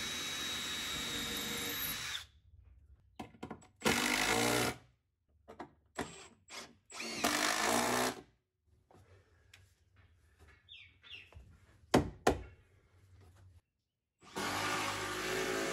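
Cordless drill running in four short bursts, pre-drilling into wooden blocking between floor joists, the first burst about two seconds long and the rest about a second each. Two sharp knocks come between the bursts.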